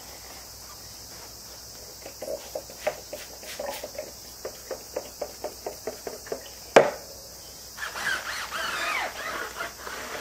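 Trigger spray bottle squirting tyre wax onto a car tyre, a quick run of about three squirts a second, then a single sharp knock, then a brush scrubbing the tyre rubber.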